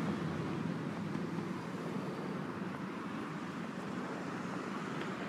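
Steady road traffic noise, with cars running along the street.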